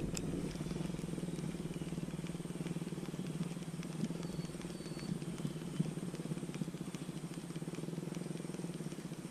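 A steady low mechanical hum, like a small motor running, with a couple of faint sharp clicks right at the start.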